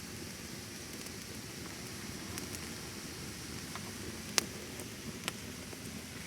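Wood bonfire burning with a steady hiss and scattered crackles, a sharp pop about four seconds in and a smaller one about a second later.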